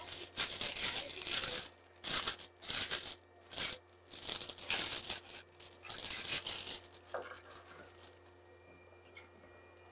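Clear plastic bag crinkling and rustling in gloved hands as a stainless-steel button plate is worked inside it, in a run of separate bursts that stop about seven seconds in.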